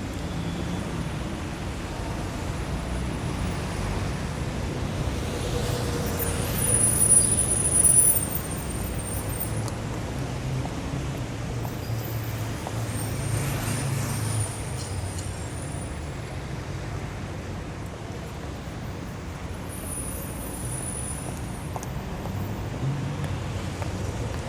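City street traffic: a steady low rumble of engines and tyres from passing vehicles. About seven seconds in a louder vehicle passes with a brief high-pitched squeal, and a fainter squeal comes around twenty seconds in.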